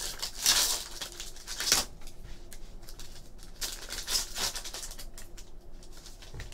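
Foil wrapper of a Fleer Retro basketball card pack being torn open and crinkled by hand, in several sharp rustling bursts.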